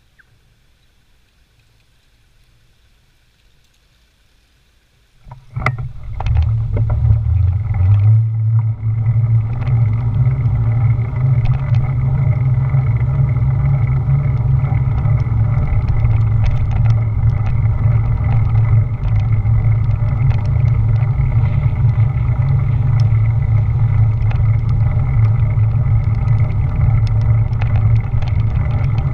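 Wind buffeting and road rumble on a bicycle-mounted GoPro Hero 4 Silver's microphone. It starts suddenly about five seconds in, as the bike moves off from a standstill, and then runs as a steady heavy low rumble with scattered small ticks from the road surface. Before that there is only quiet background.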